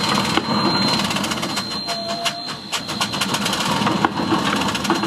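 Steam-powered railroad work machinery running, with a rapid, uneven clatter of knocks over a low rumble and a steady high thin tone.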